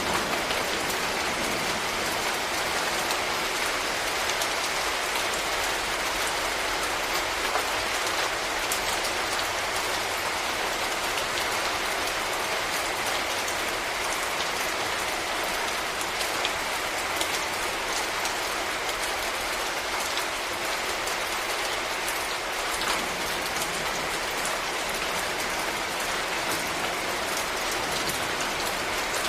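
Steady heavy rain falling on leaves, a dense even hiss dotted with individual drop taps.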